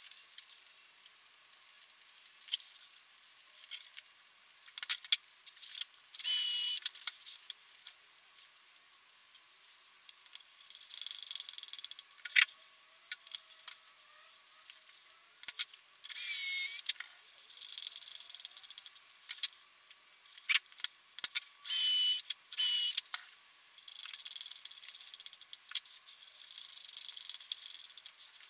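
Chrome Telecaster bridge plate and its small steel screws clinking and clicking as they are handled and set on the guitar body. Several times, for about a second each, a screw is driven into the wood with a screwdriver, giving a scraping, squeaky turning noise. The sound is thin, with no bass at all.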